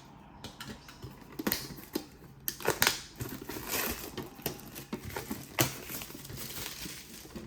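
Metal Pokémon card tins being handled and moved: scattered light clicks and knocks, with some crinkling, the sharpest taps about a second and a half, two and a half and five and a half seconds in.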